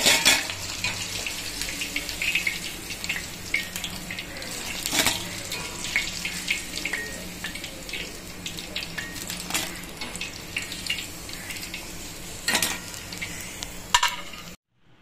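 Hot oil sizzling in an iron kadai as fried chicken 65 pieces are lifted out with a steel slotted spatula, with a few sharp clinks of the spatula against the kadai and a steel colander. The sound cuts off suddenly just before the end.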